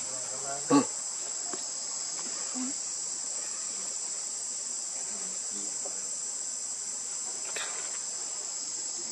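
Steady, high-pitched insect chorus, unbroken throughout, with one brief loud sound just under a second in.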